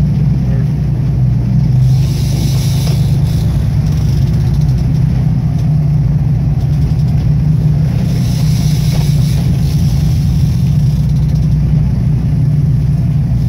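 Fishing boat's engine running with a steady low drone, mixed with wind and sea noise that swells and fades.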